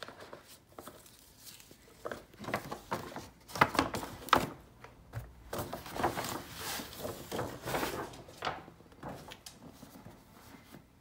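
Hermès paper shopping bag and cardboard gift boxes being handled, with irregular rustling and scraping. Two sharp knocks come a little under a second apart, about three and a half seconds in.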